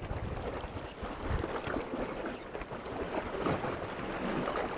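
Wind buffeting the microphone over sea waves washing against rocks: a steady rushing noise with a few louder gusts.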